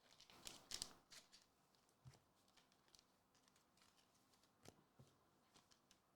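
Faint rustling and light clicks of trading cards and their packaging being handled, with a cluster of crinkly rustles in the first second and scattered soft ticks after.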